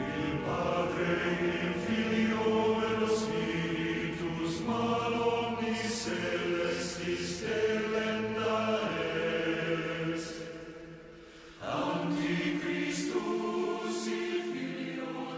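Choral chanting: a choir holding sustained chords that change every second or two. It fades briefly about eleven seconds in, then comes back suddenly.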